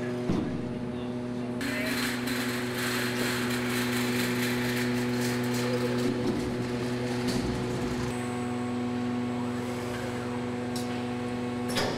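Factory machinery on a car assembly line: a steady mechanical hum with a hiss from about a second and a half in and scattered clicks. The hum's tones shift a little about eight seconds in.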